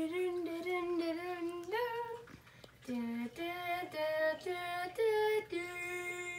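A child's voice singing a wordless tune of held notes that step up and down, with a short break about two and a half seconds in.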